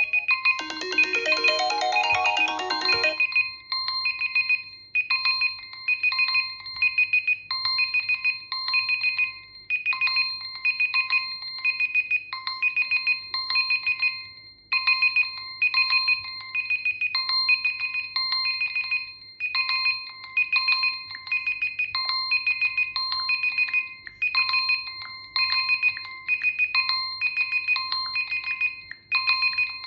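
Smartphone alarm or timer tone: a short melodic chime, then from about three seconds in a high electronic beeping that repeats in short groups about every two and a half seconds.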